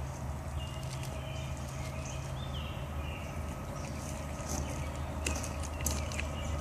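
Outdoor ambience: a steady low hum, a few short bird chirps in the first half, and scattered light clicks later on.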